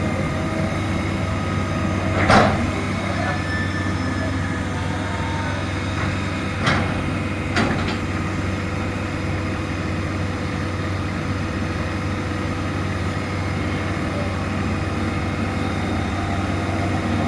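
Heavy engine of tree-removal machinery running steadily, with three sharp knocks about two, seven and eight seconds in.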